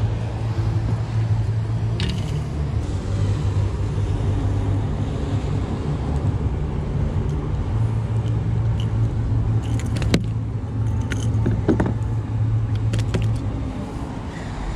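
A steady low motor rumble, with a few sharp clicks and rattles close to the microphone.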